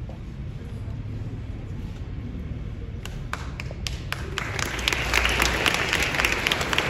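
Congregation applauding: a few scattered claps about three seconds in, building into steady applause over the last few seconds.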